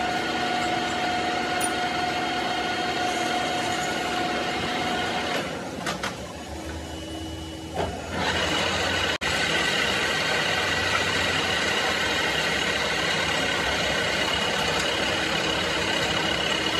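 A machine running steadily with a high whine over a noisy whir. It drops in level about five and a half seconds in and comes back louder about eight seconds in.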